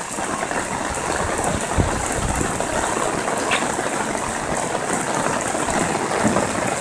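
Heavy rain pouring down onto a flooded street, a steady dense hiss.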